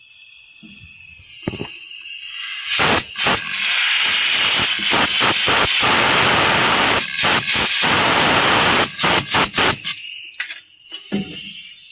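A loud hiss from a pressurised jet. It starts about three seconds in, cuts out briefly several times and stops about ten seconds in.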